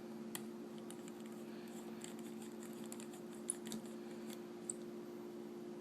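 Faint scattered clicks and light taps of a small Phillips screwdriver and parts being handled at a phone's screws, with a few sharper clicks, over a steady low hum.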